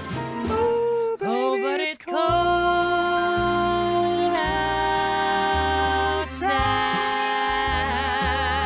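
Closing bars of a pop vocal duet with instrumental backing: the voices hold long notes, with a quick gliding vocal run about a second in and a wavering vibrato on the held note near the end.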